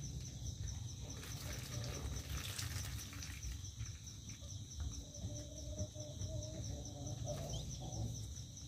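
Quiet outdoor ambience: a steady high pulsing insect trill over a low rumble, with a faint drawn-out animal call, like a distant bird or fowl, about five seconds in.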